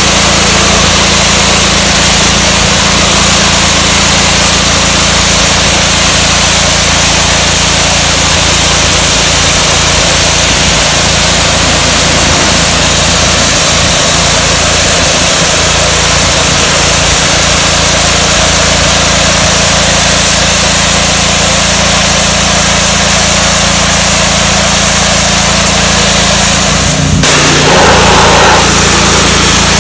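Simpson PowerShot gas pressure washer's Honda engine running steadily under load while the wand's high-pressure jet hisses against brick steps. A sharp click comes near the end, after which the sound shifts.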